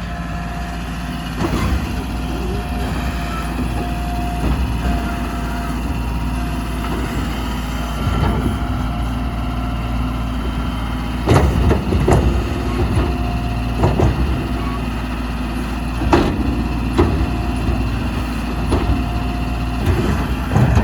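Diesel skid steer engine running steadily. From about halfway on, a series of sharp clunks and bangs comes at irregular intervals of a second or two as the fuel tank is shaken with the machine.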